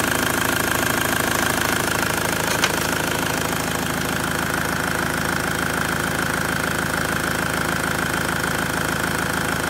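Opel Y20DTH 2.0-litre four-cylinder turbodiesel idling steadily, with one brief click about two and a half seconds in.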